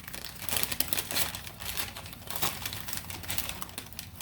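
Paper plant wrapping crinkling as it is handled and pulled open, a continuous run of irregular crackles.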